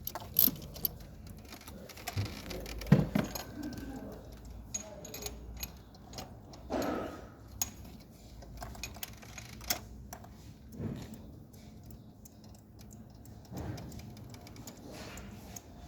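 Irregular clicks and light metallic clinks of hand tools being handled, with a few soft knocks; no engine is running.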